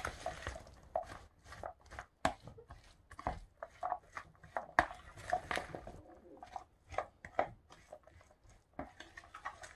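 Silicone spatula stirring a chunky chickpea salad in a plastic bowl: a run of quick, irregular scraping and tapping strokes, a few each second, thinning out near the end.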